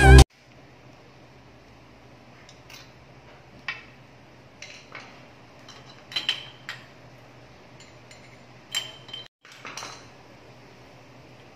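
Scattered light metallic clinks and ticks of a socket wrench working on the spark plug of a Rusi MP110 motorcycle's engine, over a faint steady low hum.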